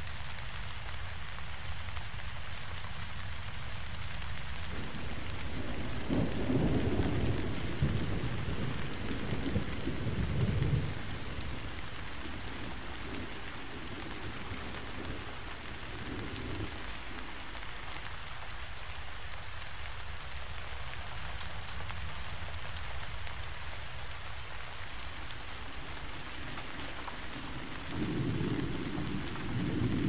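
Heavy rain falling steadily, with low thunder rumbling twice: a long roll starting about six seconds in and fading after about five seconds, and another starting near the end.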